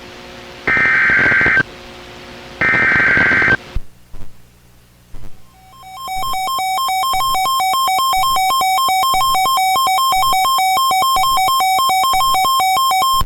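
NOAA Weather Radio Emergency Alert System activation: the last two of the SAME digital header bursts, each about a second of buzzy data tones a second apart, then after a short pause the steady attention alarm tone fading in about six seconds in and holding. It signals that a severe thunderstorm warning is about to be read.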